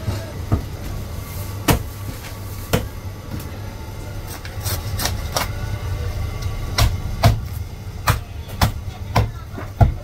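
A Chinese cleaver chopping roast goose on a wooden chopping block: about a dozen sharp, irregular knocks, a few of them in quick succession. A steady low hum runs underneath.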